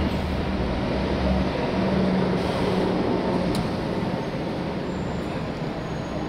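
Steady low rumble of vehicle traffic, with a deep hum that fades out about halfway through and a faint click a little after.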